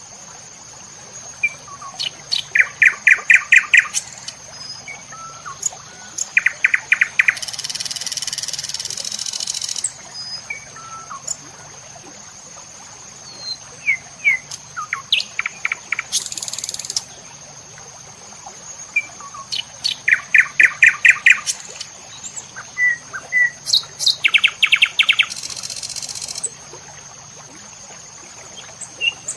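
Small birds calling again and again in short rapid trills and chirps, over a steady high-pitched insect drone. Three times a harsh high hiss swells for a second or more and stops.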